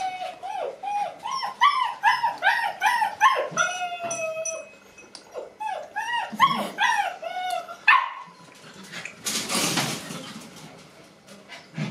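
Puppy whining and yelping in quick, high calls, about three a second, with one longer drawn-out whine about four seconds in. The calls stop about eight seconds in, and a short burst of rustling noise follows.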